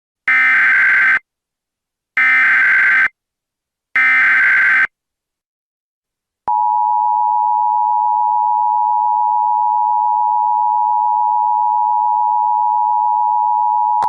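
Emergency Alert System SAME header: three one-second bursts of digital data tones a second apart. After a short pause comes the steady two-tone EAS attention signal (853 and 960 Hz), held for about eight seconds. It marks the start of an emergency alert message.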